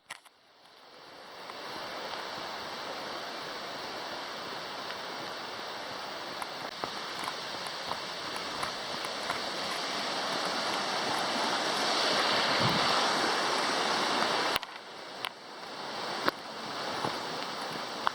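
Fast creek swollen with spring snowmelt, rushing water heard as a steady hiss that grows louder, then drops off suddenly about fourteen and a half seconds in.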